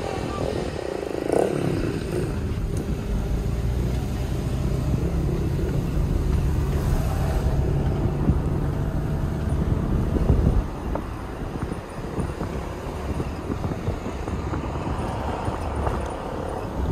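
A car driving along a road, heard from inside with the window open: a steady engine hum with road and wind noise. The engine note eases off about ten seconds in.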